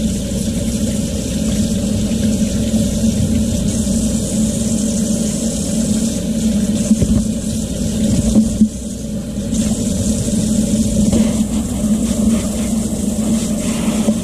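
Kitchen faucet running steadily into a sink while raw seal flippers are rinsed by hand under the stream, with a steady low hum beneath the rush of water.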